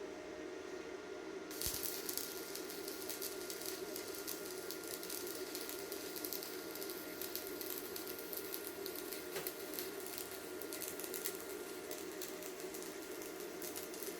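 Stick-welding arc burning an E6013 electrode, struck about 1.5 s in and then crackling steadily and irregularly as the bead is run, over a steady low hum.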